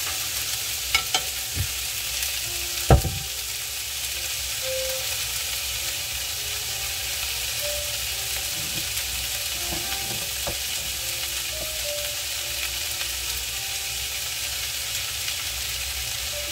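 Chopped onions, tomatoes and green peppers sizzling steadily in a frying pan with only a little oil. There are a few sharp knocks in the first three seconds, the loudest about three seconds in.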